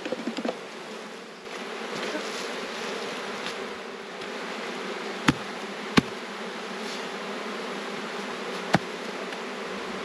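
Honeybees buzzing steadily around an opened hive, with three sharp knocks of hive parts being handled about five, six and nearly nine seconds in.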